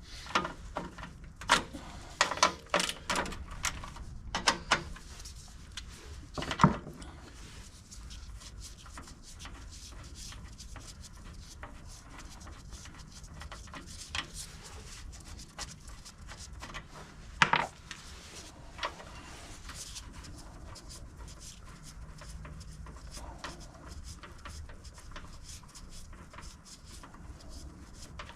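Hand tools clicking and knocking on metal as bolts are undone on a snowblower. A quick run of sharp clicks fills the first several seconds, ending in one louder knock, and a few single clicks follow later.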